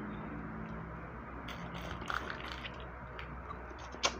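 Quiet eating sounds: hands picking apart cooked crab and rice, with scattered small clicks and wet mouth sounds, and one sharp click near the end.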